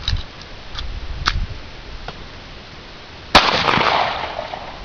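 A single gunshot about three seconds in, loud and sharp, with a trail that fades over about a second. A few faint clicks come before it.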